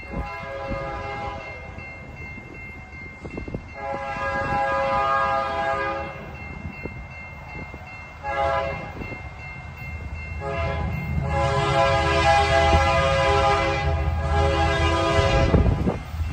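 EMD SD70MAC locomotive's air horn sounding the grade-crossing signal: the end of one long blast, then a long, a short, and a final long blast of about five seconds, warning of its approach to a road crossing. Underneath, the low rumble of the loaded coal train's diesel locomotives grows louder.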